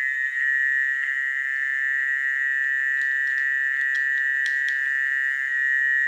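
A dense chorus of frogs calling after rainfall, a steady, unbroken drone, with a few faint clicks over it.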